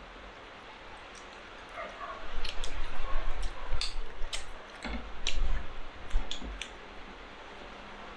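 Close-up mouth sounds of eating by hand: wet chewing and lip smacks, with many sharp clicks. Dull low bumps come in a cluster in the middle.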